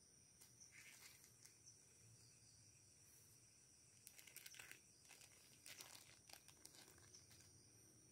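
Faint crinkling of a small clear plastic zip bag handled in gloved fingers, in short bursts about a second in and again between about four and seven seconds in.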